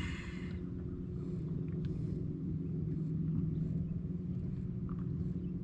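Steady low hum of a boat's electric trolling motor running, with a few faint ticks.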